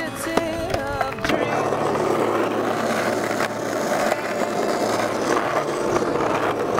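Skateboard wheels rolling on rough asphalt, a steady gritty rumble that settles in about a second in after a few sharp clicks.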